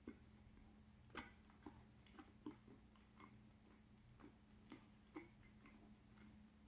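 Near silence with faint, irregular light clicks and taps, about a dozen over several seconds, from the croissant pastry being handled and pulled apart.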